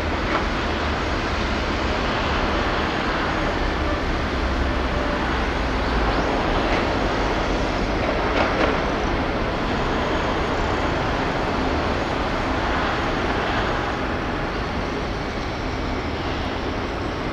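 Steady outdoor background rumble and hiss, with a few faint knocks about halfway through.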